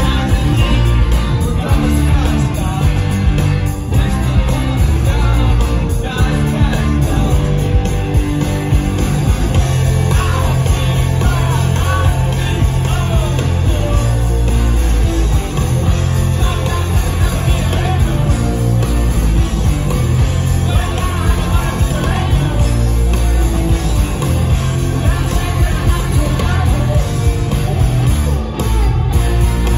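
Live rock band playing loud, with electric guitar and a heavy bass low end, and a singer's voice heard at times, recorded from within the audience.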